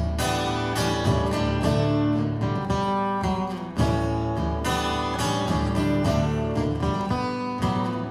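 Two acoustic guitars playing together, strumming and picking chords in a steady rhythm.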